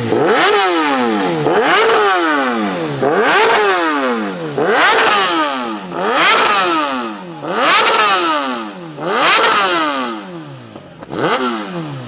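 Superbike engine revved over and over, about eight blips roughly a second and a half apart, each climbing and falling in pitch.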